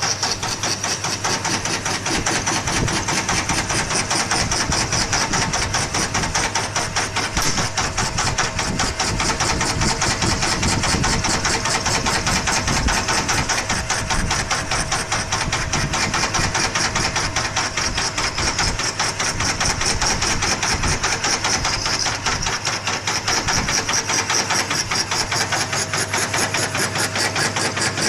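Homemade scroll saw running steadily, its reciprocating blade mechanism making a fast, even rattle over a constant motor hum.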